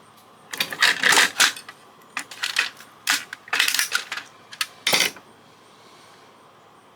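Small hard plastic and metal parts of a fax machine clinking and clattering as it is taken apart by hand: an uneven run of sharp clicks and knocks that stops about five seconds in.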